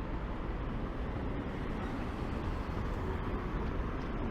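Steady street traffic noise, a continuous rumble of passing vehicles with no single event standing out.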